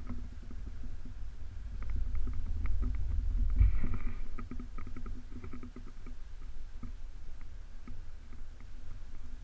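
Low rumble of wind buffeting the aerial camera's microphone, with scattered light clicks; it swells to its loudest about four seconds in.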